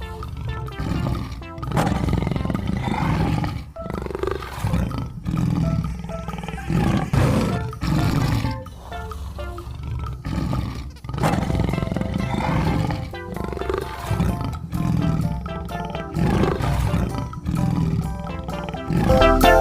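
Big cat roaring again and again in rough calls of a second or two with short gaps between, over background music.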